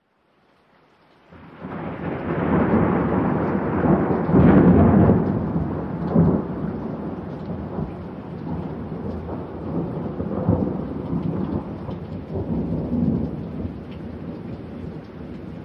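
Recorded thunderstorm opening a song: steady rain with rolling thunder, fading in after about a second of silence. The loudest thunder roll comes about four to five seconds in, with smaller rumbles later.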